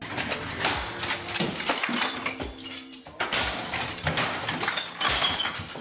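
Repeated crashing and clattering as a man smashes and knocks things around a cluttered desk, with bottles and cans clinking among the hits.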